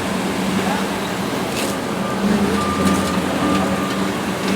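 Excavator's heavy diesel engine running steadily, a constant low drone. A faint high tone sounds about three times in the middle.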